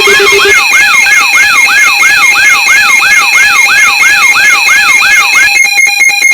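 Loud electronic emergency alarm made of layered tones: a rapid whooping siren sweep, about three a second, over steady beeping tones. Near the end the whoops stop and it turns into a fast pulsing beep.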